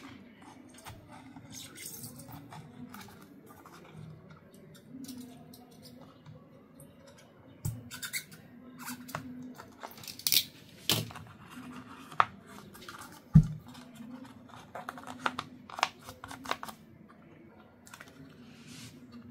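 Scraping and sharp plastic clicks as a thin pry tool works around the rim of an original Hyundai Ioniq door speaker to free it from its plastic mounting bracket. A single heavy knock about two-thirds of the way through is the loudest sound.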